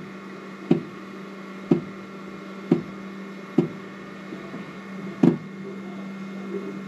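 Flashforge Adventurer 3 Pro 3D printer's extruder clicking while printing, a sharp click about once a second with one longer gap, over the printer's steady hum. The clicking is the fault the owner blames on the extruder drive gear not gripping the filament well enough.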